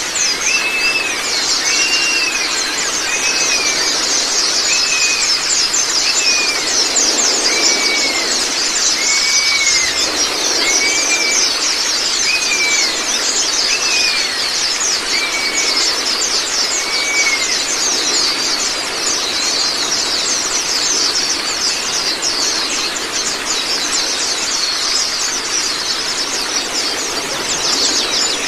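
White-eyes (Zosterops) twittering in a dense, rapid, high-pitched chorus over a steady rush of running water. For the first seventeen seconds or so, an arched whistled note repeats about once a second, then stops.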